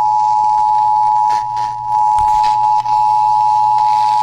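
Emergency Alert System two-tone attention signal: a loud, steady dual tone just under 1 kHz, sounding for a severe thunderstorm warning. It dips briefly in level about a second and a half in.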